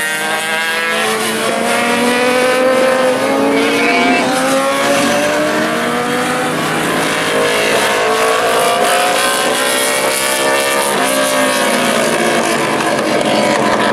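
Several classic superbike racing motorcycles accelerating out of a corner. Their engines overlap, each rising in pitch, dropping at a gear change and climbing again.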